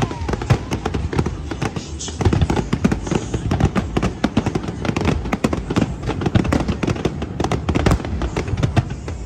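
Aerial fireworks bursting in a rapid barrage of bangs and crackles, many per second, getting denser and louder about two seconds in.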